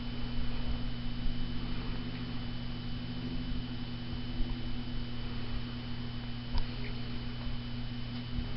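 Steady low electrical hum with background hiss and a faint high steady tone. There is one short click about six and a half seconds in.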